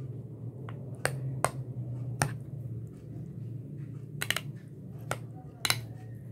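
A stirring utensil clicking against a glass bowl while a thick mayonnaise-and-cream dressing is mixed: about eight sharp clicks at uneven intervals, a couple of them doubled, over a low steady hum.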